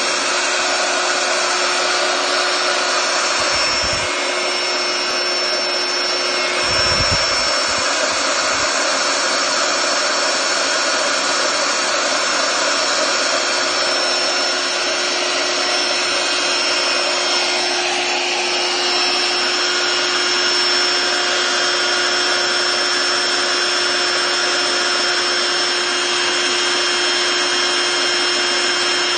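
Small electric inflator pump running steadily as it blows air into a beach ball: an even rush of air over a constant motor whine. A couple of low bumps sound about four and seven seconds in.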